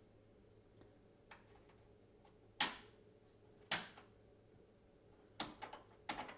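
Kitchen cupboard doors and drawers being opened and shut: a few sharp clicks and knocks, two single ones and then a quick cluster near the end, over faint room hum.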